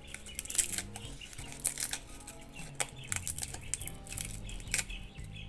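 Dry bay leaves crackling as they are torn apart by hand, with irregular crisp snaps over soft background music.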